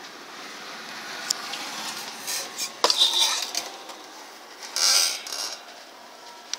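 Handling noises at an induction cooker's plastic housing: a couple of sharp clicks and short scraping, rustling bursts over a steady hiss.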